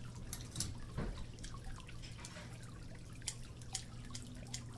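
Water dripping in irregular drops, a few each second, over a steady low hum.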